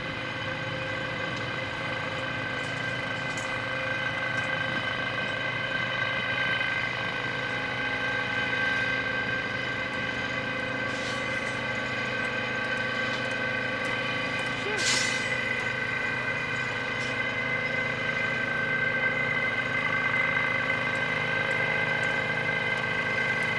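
Diesel engines and hydraulics of Cat excavators working, with a steady whine over the engine sound. A single sharp knock about fifteen seconds in.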